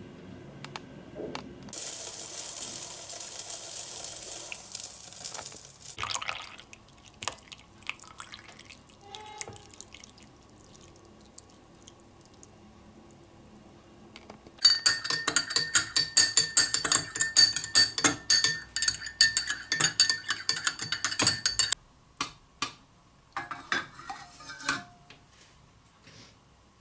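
A spoon stirring in a drinking glass of milk and coffee, clinking rapidly against the glass with a ringing tone for about seven seconds past the middle. Earlier there is a quieter hiss and a few light knocks.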